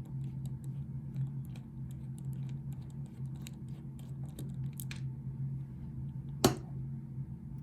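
Small metal clicks and taps as a pin-tumbler challenge lock is taken apart by hand, its small parts and screws being handled, with one louder clack about six and a half seconds in. A steady low hum runs underneath.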